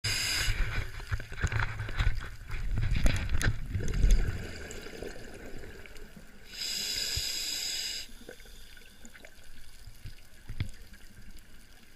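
Scuba diver breathing through a regulator underwater: a short hissing inhale, then exhaled bubbles crackling out for about four seconds, and a second hissing inhale a little past halfway.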